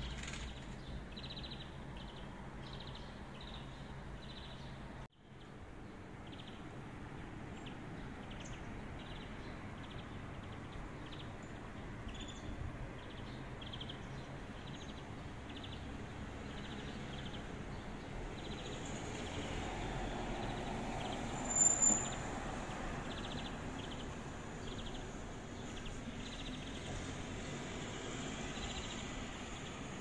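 Faint outdoor ambience with small birds chirping over and over. A sharp, high chirp about three-quarters of the way through is the loudest sound.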